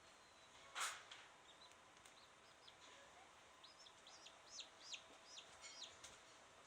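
Faint chirping of a small bird: a run of about eight short, high calls, each falling in pitch, in the second half. A soft knock comes about a second in.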